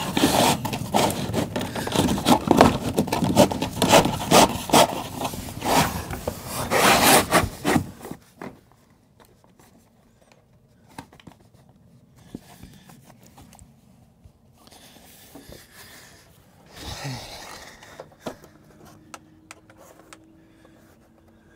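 New plastic slide ski being pushed in under an RV slide-out for a dry fit, scraping and rubbing along the wood for about eight seconds. After that only a few faint knocks.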